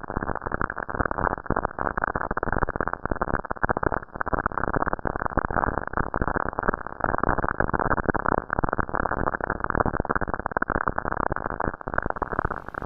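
Cassini spacecraft's RPWS recording of Saturn's radio emissions converted to audio: a dense, fluttering, crackling noise with no high hiss. A higher, thinner hiss joins near the end.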